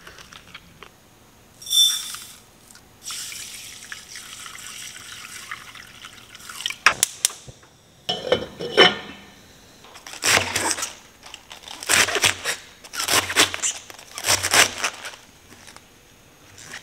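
Chef's knife slicing through a head of cabbage on a plastic cutting board: four cuts about a second apart, each with a thud of the blade on the board. Before that there is a steady soft hiss for a few seconds, then a few sharp clicks.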